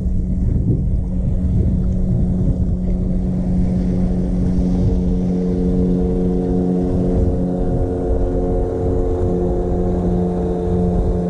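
Electric trolling motor on the bow of a bass boat running steadily, giving a constant hum with several held tones that firm up about halfway through, with wind buffeting the microphone underneath.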